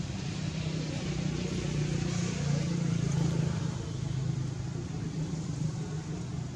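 A motor vehicle engine running with a steady low hum, growing louder toward the middle and easing off near the end.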